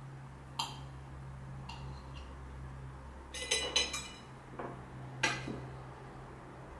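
A plate and cutlery clinking as they are handled and set down on a table: a few separate light clinks, with a quick cluster of them about three and a half seconds in and a last sharp one near five seconds. A low steady hum runs underneath.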